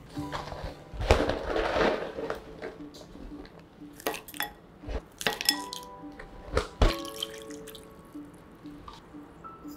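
Kitchen handling sounds over soft background music. A noisy stretch about a second in comes as a lid is set on a simmering pan. Then tofu cubes and shimeji mushrooms are dropped into a ceramic bowl with a few sharp clinks, and water is poured into the bowl near the end.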